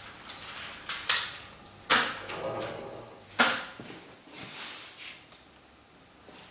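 A handful of sharp knocks and clatters, the loudest about one, two and three and a half seconds in.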